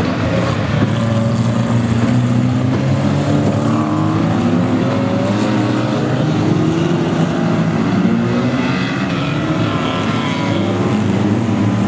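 A pack of Lightning Rods small saloon race cars racing past on a short oval, several engines running hard at once, their notes rising and falling as the cars go by.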